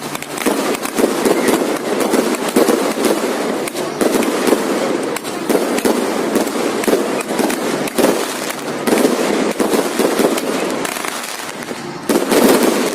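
Fireworks going off in a continuous barrage of rapid bangs and crackling.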